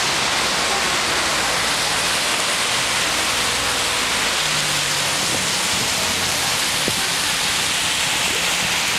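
Steady hiss of heavy rain falling on wet pavement and road, with traffic passing over the wet street.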